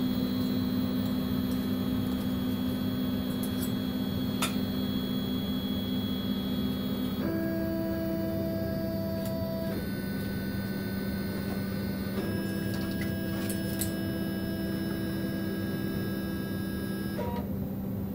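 Hyrel 3D printer running a print: its stepper motors whine as the two-head carriage moves, the pitch jumping to a new steady note every few seconds as each move changes. A steady hum runs underneath.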